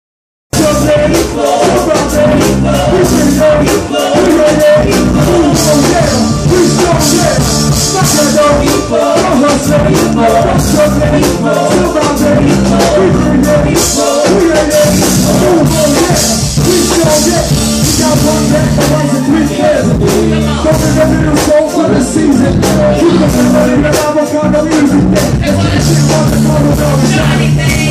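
Live hip-hop performance: a rapper's amplified vocals over a loud, bass-heavy beat through a club PA system.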